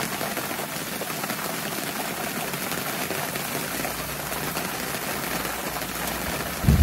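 Steady rain falling, with a low thunder rumble building over the last few seconds and breaking into a big, loud thunderclap at the very end.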